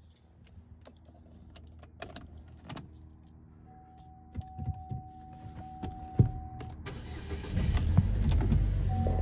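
Buick Regal being started, heard from inside the cabin: a few clicks, a steady electronic warning tone for about three seconds, then the engine cranks and fires about seven seconds in and runs with a low rumble. The warning tone sounds again near the end.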